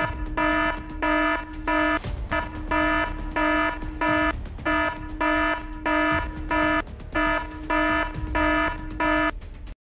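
An electronic alarm beeping in a steady rhythm, just under two beeps a second in groups of four with short pauses, over a low rumble. It cuts off abruptly near the end.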